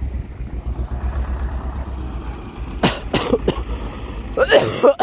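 Tractor engine running with a steady low rumble. About three seconds in there are a few sharp short sounds, and a louder burst comes just before the rumble cuts off at the end.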